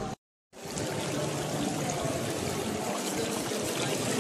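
Steady rush of running water circulating in a shallow sturgeon touch pool, after a brief dead-silent gap just after the start.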